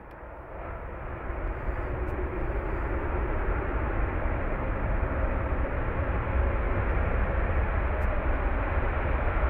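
Jet engines of a Sukhoi Su-30SM, its two AL-31FP turbofans, running at high power as the fighter rolls down the runway. It is a steady rushing noise that grows louder throughout.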